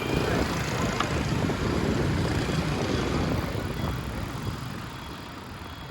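Steady rushing noise of wind and road traffic heard while riding along a road, fading toward the end.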